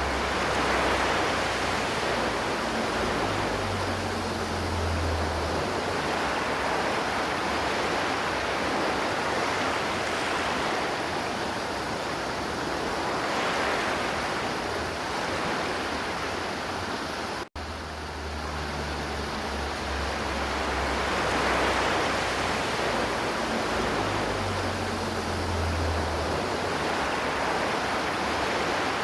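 River water flowing steadily, an even rushing sound. It cuts out for a split second about two-thirds of the way through, then carries on.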